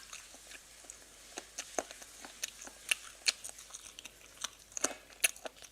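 Someone biting and chewing bone-in chicken feet: a string of short, irregular crunchy clicks of chewing.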